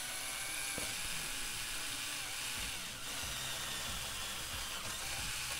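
Bosch power driver spinning a step drill bit as it cuts a hole through the side of a metal box, running steadily with a brief dip about three seconds in.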